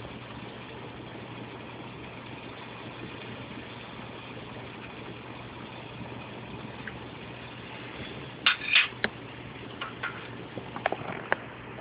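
Steady rushing noise of an open top-jet alcohol stove burning under a Heineken-can pot of water that is coming to a rolling boil. A few sharp clicks and taps come about two-thirds of the way in and again near the end.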